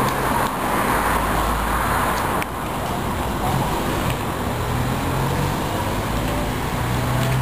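Steady street traffic noise with a low, even motor hum underneath.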